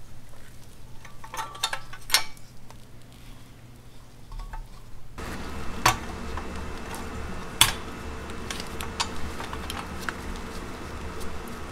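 Scattered light metal clicks and taps from a pressed-steel toy dump truck as it is handled and turned over, its battery being fitted. The two sharpest clicks come about six and seven and a half seconds in.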